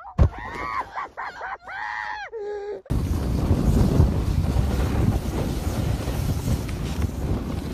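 A few short wordless cries from a person's voice, each rising and falling in pitch, then from about three seconds in a loud steady rumble of wind on the microphone as the camera moves down the slope.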